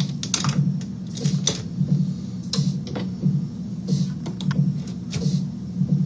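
Light clicks and rattles of small plastic and metal parts of a scale RC crawler chassis being handled and worked apart by hand. Underneath runs a low looping background track that pulses about twice a second.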